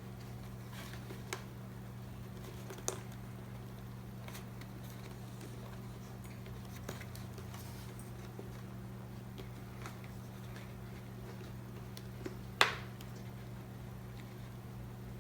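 Scattered light clicks and taps of a motorcycle helmet's plastic parts and liner being handled and fitted, with one sharper click near the end, over a steady low hum.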